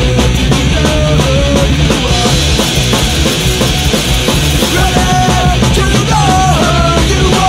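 Loud punk rock music, with a melody line sliding between notes in the second half.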